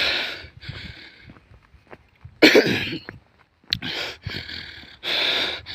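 A man breathing hard and fast into the microphone after running, hyperventilating slightly: a string of short, heavy breaths, with one louder, rasping breath a little before the middle.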